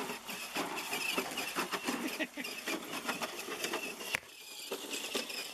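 Radio-controlled scale rock crawler driving over rocks: a whine from the small electric motor and gears, with clicking and clatter of tires and chassis on rock. A sharp knock comes about four seconds in, and it is quieter after.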